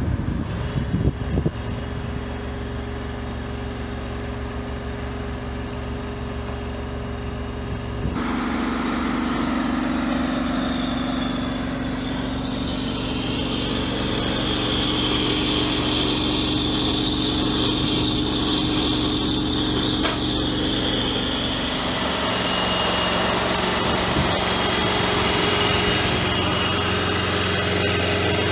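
Engine of road-marking equipment running steadily. The hum changes to a different pitch about 8 seconds in and again about 22 seconds in, with a high hiss over it through the middle.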